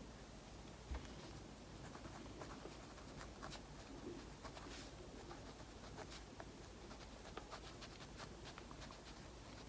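Pen writing by hand on notebook paper: soft, faint scratching strokes with small ticks as the letters are formed.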